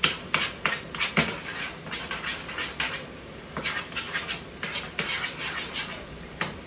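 Potatoes being mashed by hand in a metal saucepan: irregular wet squelches and clinks of the masher against the pan, two or three a second.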